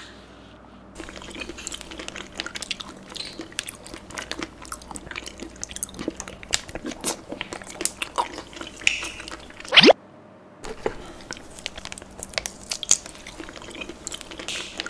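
Close-miked eating: wet chewing and biting of soft, gummy food, with many small sticky mouth clicks. About ten seconds in there is a short, loud rising swoosh, then a moment of dead silence before the chewing resumes.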